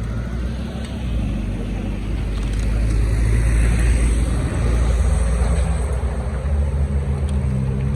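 A vehicle running close by with a loud, steady, low rumbling hum, swelling a little through the middle.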